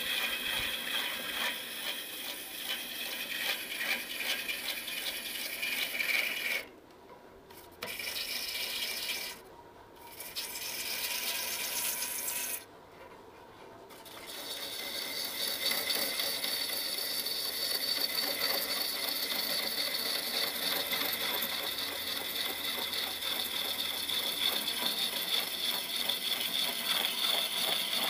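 Turning tool cutting the outside of a large wooden vessel spinning on a lathe, a steady rough shaving noise. It drops away three times in the first half as the tool comes off the wood, then runs on unbroken.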